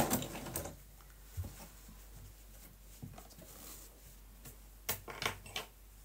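A Bernette sewing machine stops stitching right at the start, its sound dying away within about half a second. Then come a few faint, scattered clicks and taps from handling the fabric and the machine.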